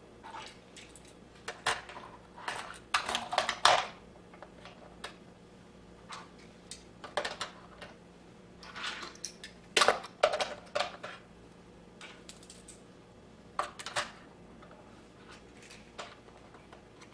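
Plastic toy jet transporter and die-cast toy cars being handled: irregular clicks and clacks of small hard objects knocking together.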